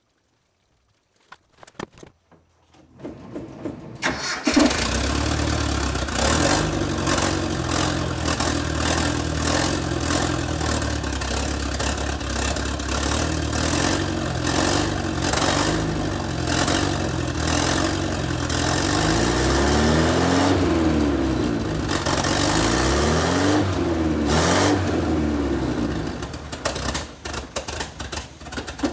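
Nissan Z24 four-cylinder engine in a Datsun 720 pickup cranking and catching about four seconds in, then running, with two quick revs up and back down and a brief dip near the end.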